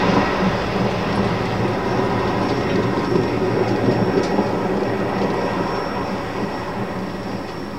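Freight train's cars rolling slowly past on the rails, with a low rumble and clatter that fades as the train slows almost to a stop. A faint high whine comes in near the end.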